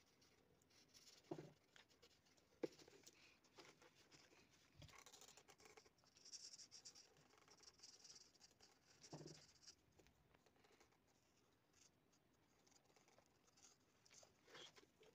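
Marker nib rubbing on paper as shapes are coloured in, with faint scratchy strokes. A few soft knocks come about a second and a half in, about two and a half seconds in, and again near nine seconds.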